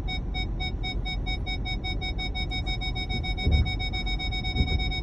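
Ford Explorer's rear parking-sensor warning beeping as the car reverses close to the vehicle behind. The beeps come faster and faster until they almost run together near the end, which signals that the bumper is only inches away. A low rumble runs underneath, with two low thumps in the second half.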